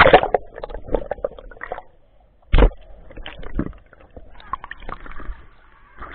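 Water splashing and sloshing against a camera dipping in and out of a swimming pool, with one loud splash about two and a half seconds in.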